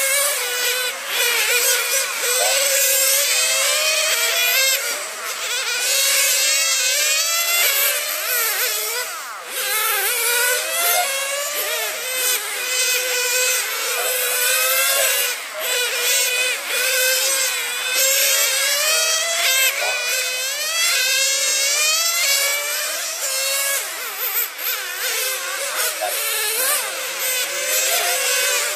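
Several radio-controlled model racing cars lapping the track, their small high-revving motors whining and repeatedly rising and falling in pitch as they accelerate and brake, several overlapping at once.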